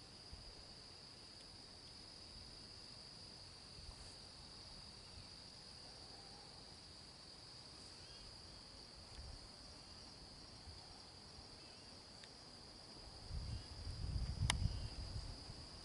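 Faint, steady high-pitched chorus of insects. Near the end a low rumble on the microphone rises, with one sharp click.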